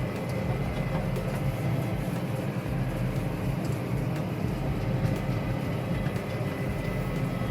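Farm tractor running steadily while pulling a round hay baler, a low, even drone.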